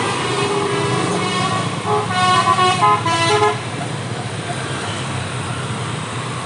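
Tour bus's telolet (basuri) musical air horn playing a short tune of stepped notes over the running of vehicle engines and traffic. The horn tune starts about a second and a half in and stops about two seconds later.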